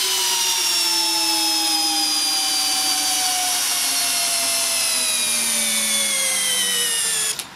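Makita 40V XGT cordless drill in first gear, drill mode, driving a 12 mm by 300 mm stainless coach screw into timber: a steady motor whine that slowly falls in pitch as the drill slows under the growing load, then stops abruptly near the end.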